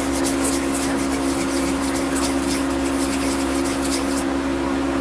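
A steady mechanical hum, like a fan or appliance running, with a faint scratchy rustle on top that stops about four seconds in.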